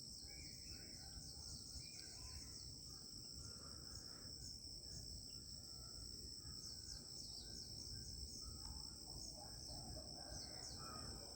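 Steady high-pitched drone of insects singing, with faint scattered bird calls underneath.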